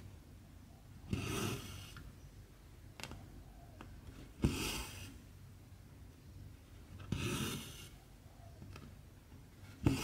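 Cotton embroidery thread being pulled through stamped 14-count cross-stitch fabric: four pulls, roughly every three seconds, each a short swish about half a second long. A few faint ticks of the needle fall between them.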